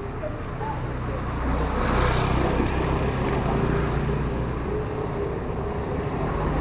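Motor scooter engines running as they ride up toward the listener, a low steady hum that grows louder about two seconds in and again near the end.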